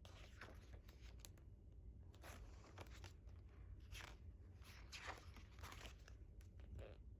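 Faint paper rustling and soft swishes of photobook pages being turned and handled, with small clicks scattered through.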